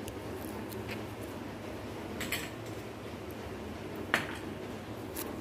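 A few light clinks and knocks of kitchen dishes and utensils, the sharpest about four seconds in, over a faint steady hum.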